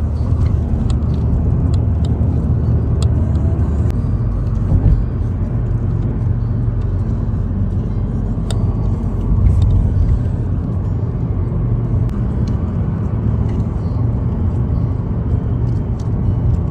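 Steady low rumble of a car driving at road speed, heard from inside the cabin: tyre and engine noise, with a few light, irregular clicks.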